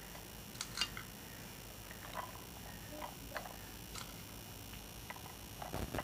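Light, scattered clicks and taps of kitchen utensils against plates as boiled peas are added onto plates of papri; the loudest comes just under a second in, the others spread out one at a time.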